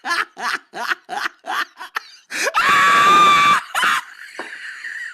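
Girls laughing hard in quick rhythmic bursts, then a loud high-pitched shriek of about a second, halfway through, followed by one more laugh.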